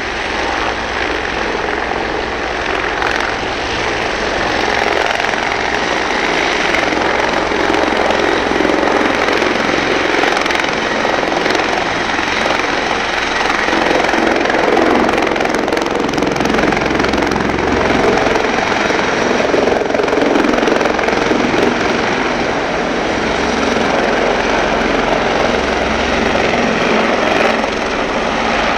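Fire brigade helicopter's rotor and engine running loud and steady as it lifts off from the helipad a few seconds in, hovers, and climbs away overhead. The noise swells a little as it rises.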